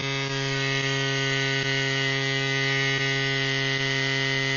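CYCPLUS AS2 Pro battery-powered mini bicycle tyre pump running with a steady buzzing hum as it inflates a road bike tyre; the motor cuts off abruptly at the very end, switching itself off on reaching its preset pressure of 80 psi.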